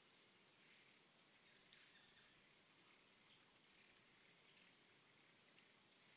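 Near silence: faint outdoor ambience with a steady, high-pitched insect drone.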